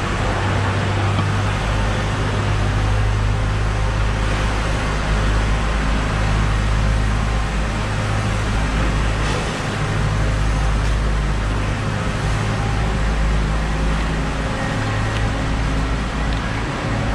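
Steady low mechanical rumble with a constant hum, over an even background noise, with a few faint ticks.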